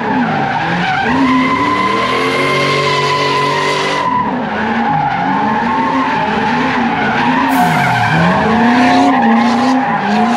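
Cars spinning donuts: tires screeching with a steady high squeal while the engines rev up and down over and over.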